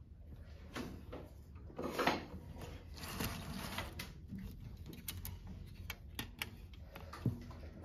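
Drafting tools handled on a drafting table: a long straightedge slid across the paper with a scraping sound about two seconds in, a longer rustling scrape, then light clicks as a plastic triangle is picked up and set on the sheet, with a sharper tap near the end.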